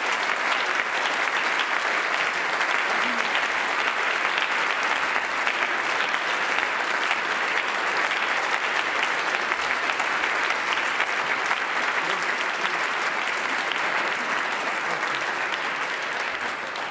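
Long, steady applause from a large crowd of people clapping, a dense patter of many hands, starting to die down near the end.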